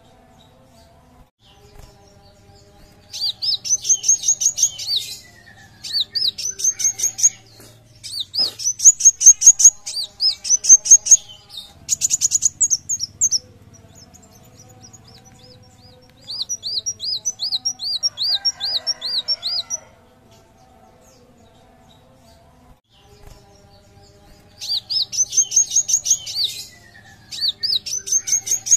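Kolibri wulung sunbird singing: phrases of rapid, high, rising chirps, each a second or two long with short pauses between. In the middle comes a run of repeated swooping notes, and after a pause two more chirp phrases near the end.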